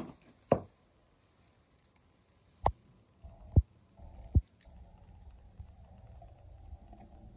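A metal spoon knocking against a ceramic plate and bowl while scooping and spreading a mayonnaise sandwich filling onto bread: about five short, sharp knocks in the first four and a half seconds, then only a faint low hum.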